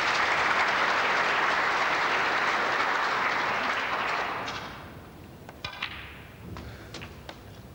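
Audience applauding, dying away after about four seconds. Then a few sharp clicks of snooker balls as a shot is played.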